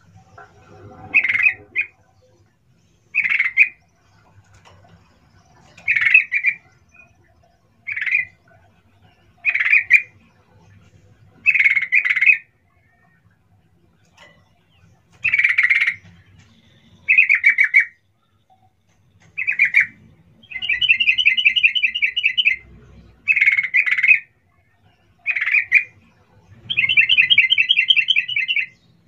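Yellow-vented bulbul (trucukan) calling: short, loud 'cuk cuk' calls repeated roughly every two seconds, broken twice, past the middle and near the end, by a longer rapid chattering trill of about two seconds.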